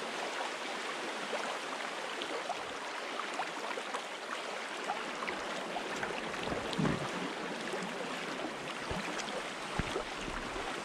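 Steady rushing of a flowing mountain stream, with a few faint clicks and soft low knocks.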